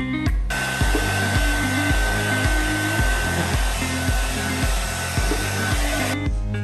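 Handheld hair dryer blowing steadily on a dog's wet coat, with a thin steady whine in its rush of air; it comes in about half a second in and stops shortly before the end. Background music with a steady beat plays underneath.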